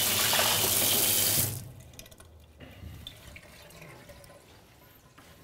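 Water running from a tap into and over a plastic filter housing in a stainless steel sink as the housing is rinsed out. The water stops about a second and a half in, leaving only faint handling sounds.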